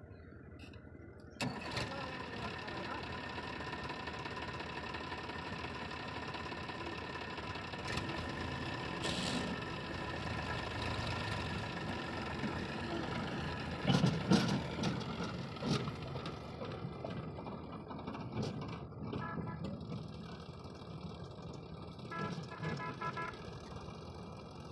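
Diesel engine of heavy earthmoving machinery running steadily, coming in suddenly about a second and a half in, with a few loud heavy knocks and thuds past the middle.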